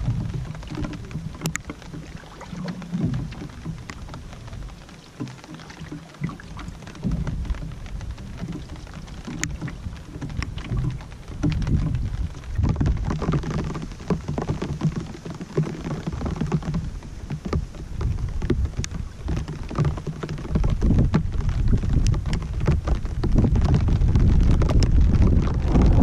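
Wind and rain of an approaching storm on an open lake: a gusting low rumble that grows louder toward the end, with scattered sharp ticks of raindrops.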